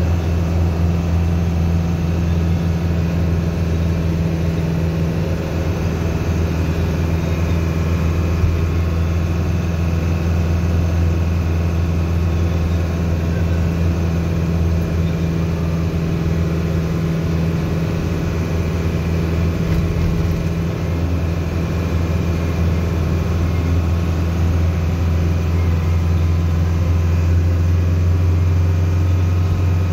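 Engine of a large road vehicle running steadily on the move, heard from the cab as an even low drone.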